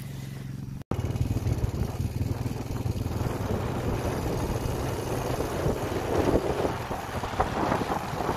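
Quad bike (ATV) engine running steadily, heard from the bike as it rides across rough grass, with a brief gap just under a second in.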